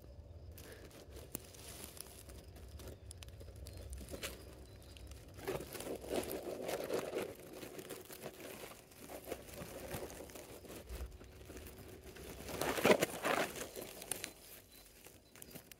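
Dry grass and plant litter rustling and crackling close to the microphone in irregular bursts, the loudest burst a little before the end.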